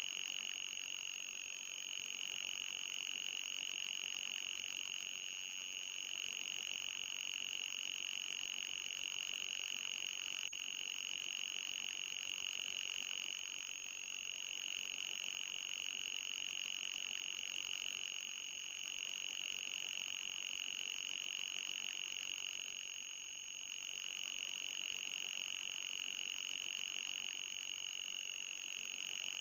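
Electronic anti-mosquito repellent tone: a steady, piercing high-pitched whine with a fainter, higher whine above it, dipping briefly a few times.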